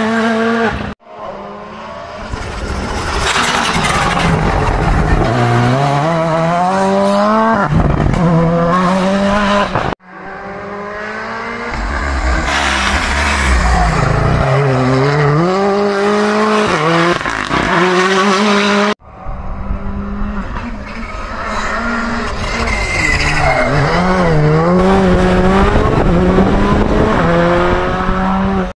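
Rally cars driven hard through tight bends, in three separate passes: the engines rev up and down through gear changes, dropping as they slow into a hairpin and climbing again as they pull away.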